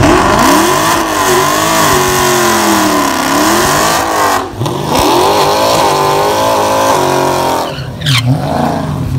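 Dodge Challenger doing a burnout: the engine is revved hard, its pitch rising and falling again and again as the rear tyres spin and smoke, with a couple of brief lifts off the throttle about halfway through and near the end.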